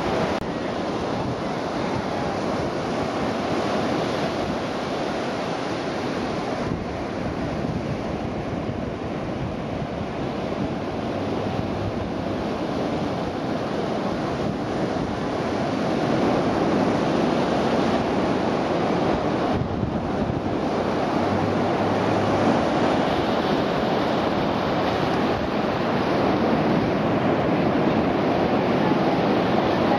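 Surf breaking and washing on a sandy beach under a strong onshore wind, with the wind buffeting the microphone; a continuous roar that grows louder about halfway through.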